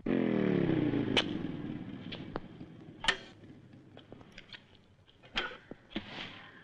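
Yamaha FJ sport motorcycle engine winding down in pitch as the bike pulls up, its sound fading away over about two seconds. A few sharp clicks and knocks follow.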